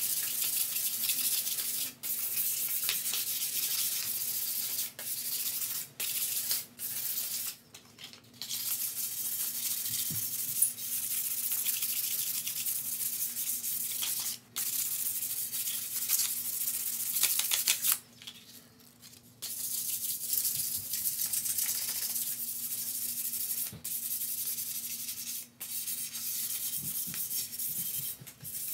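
Steel Unistrut channel being scuffed by hand with an abrasive: a steady scratchy hiss of back-and-forth rubbing strokes, broken by short pauses, the longest about two thirds of the way through. The scuffing roughs up the metal so that bed liner coating will stick.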